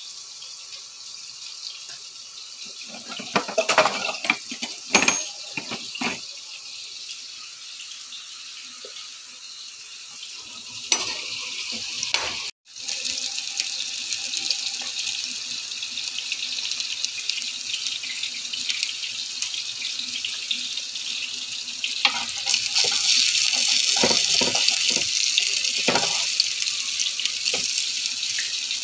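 Hot oil sizzling steadily as potato strips fry in a pan, then food sizzling on a ridged grill pan, louder in the last few seconds. Several short clattering knocks of cookware or utensils come in groups, with a brief cut-out of sound about halfway.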